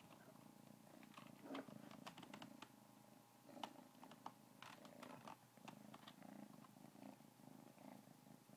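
Orange kitten purring steadily at close range, a quiet pulsing rumble, with scattered sharp clicks and rustles throughout.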